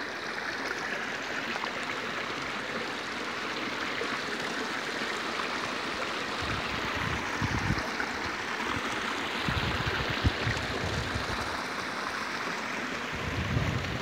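Shallow stream running and trickling over rock ledges in a steady rush, with a few low rumbles from about halfway through and again near the end.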